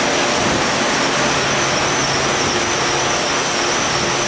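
Steady, loud machinery noise of a plastic film and bag factory: an even rushing hiss with a thin, high, steady whine over it and a faint low hum.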